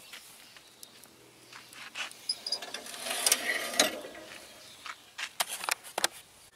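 Steel firebox lid of an Oklahoma Joe offset smoker being shut and handled: metal clanks and scraping, loudest about three to four seconds in, then a few sharp clicks near the end.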